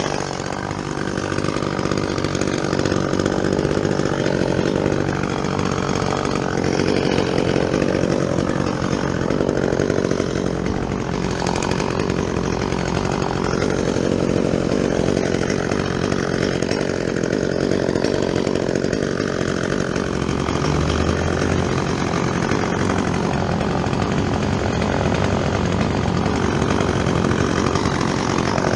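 Chainsaw running steadily under load while cutting through fir wood, its engine note swaying slightly as it bites; the chain is dull.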